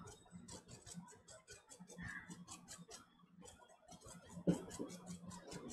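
Faint room tone in a quiet pause: a low steady hum under a run of soft, rapid ticks, about six a second, that stop briefly a little after three seconds, with one soft knock about four and a half seconds in.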